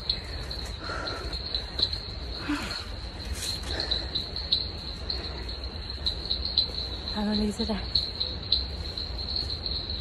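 Insects in the forest keep up a steady, high-pitched trill. A brief burst of voice comes about seven seconds in.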